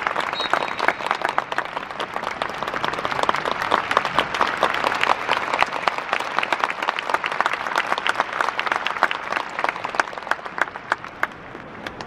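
Stadium crowd applauding, a dense patter of many hands clapping that thins out and dies away near the end.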